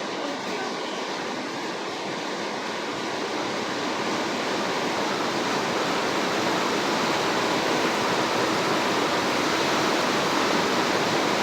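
Steady rush of falling water with no distinct drops, growing gradually louder.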